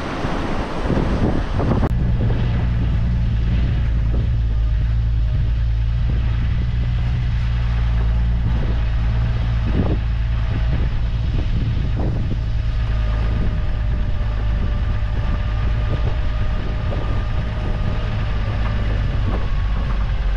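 Wind and water noise for about two seconds, then an engine running steadily with a deep hum; a faint steady whine joins about halfway through.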